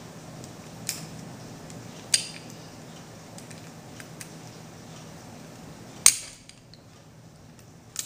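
Sharp metallic clicks and clacks of Glock pistol parts being fitted back together during reassembly, four in all, the loudest about six seconds in.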